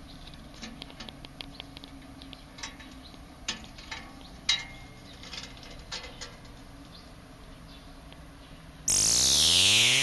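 Faint scattered clicks and ticks over a low steady hum, then about nine seconds in a loud electronic swoosh sound effect starts suddenly, its pitch sweeping, marking a scene transition.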